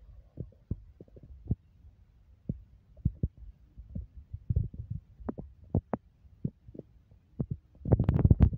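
Microphone handling noise: irregular soft thumps and knocks from a handheld phone camera being moved, growing denser and louder near the end.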